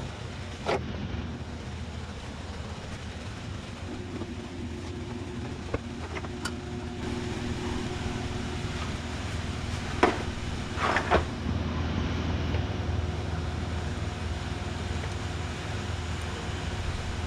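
A steady low hum with a few short metallic clanks and clicks scattered through it, from hand tools and parts during work on a car's rear suspension.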